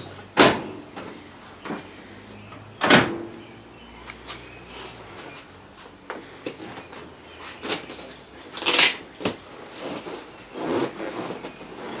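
Sharp clunks of a side-by-side's suspension seat being set into its quick-release seat mounts. The two loudest come about half a second and three seconds in, with lighter knocks and a scraping rustle later on.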